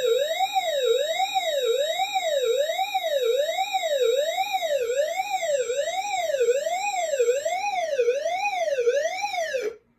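A fire alarm voice-evacuation system sounds its suppression-release (agent release) alert: a siren tone sweeping steadily up and down, a little faster than one sweep a second. It signals that the suppression releasing system has been activated. The siren cuts off abruptly just before the end, and a faint steady high tone underneath stops about three-quarters of the way through.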